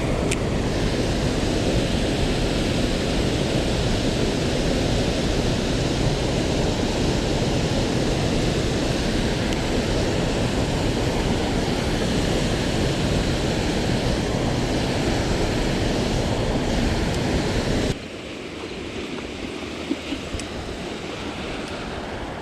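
Loud, steady rushing noise with no pitch, heaviest in the low range. Near the end it drops abruptly to a quieter hiss with a couple of faint clicks.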